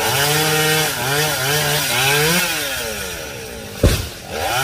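Two-stroke chainsaw revved in short surges, its pitch climbing and falling about four times, then dropping back toward idle. A single sharp knock comes about four seconds in, and the saw revs up again at the end.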